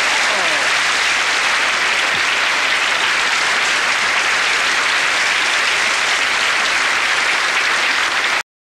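Theatre audience applauding steadily, a dense even clapping that cuts off suddenly near the end.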